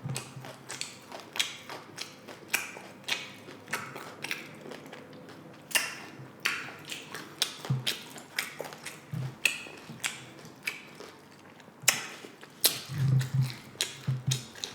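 Tortilla chips being crunched and chewed close to the microphone: irregular crisp crunches, several a second, with a few soft low thuds.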